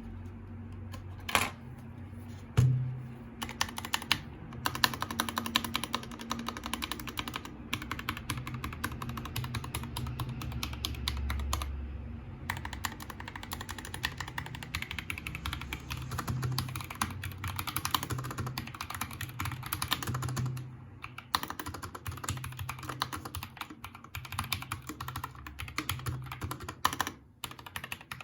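Typing on a MIIIW Art Series mechanical keyboard with linear Gateron G Yellow Pro switches and PBT keycaps: a few separate key clacks, then fast continuous typing with a couple of short pauses.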